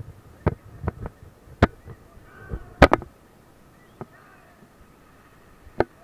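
A handful of sharp, irregular knocks and clicks, the loudest a close pair about three seconds in, over a faint, steady rush of river water.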